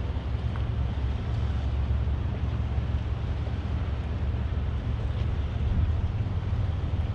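Steady low rumble of a motor yacht under way at manoeuvring speed, mixed with wind on the microphone.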